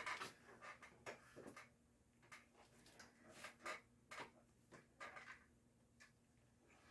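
Near silence in a small room, with faint scattered clicks and rustles, about a dozen short ones at uneven intervals.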